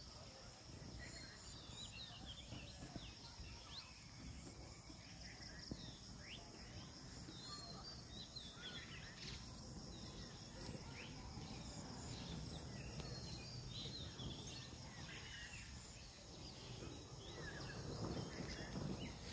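Rural ambience: a steady high-pitched insect drone with many short bird chirps and calls over it. A low rumble lies beneath and grows louder near the end.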